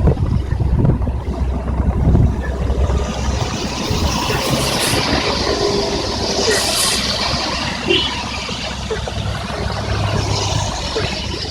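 Traffic passing on a wet highway in heavy rain: tyres hissing on the wet road, with a vehicle's low engine rumble that fades after about four seconds.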